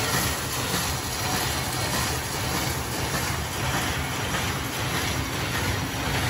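Oyang A460 square-bottom paper bag machine running and turning out bags: a steady, fast mechanical clatter over a low hum.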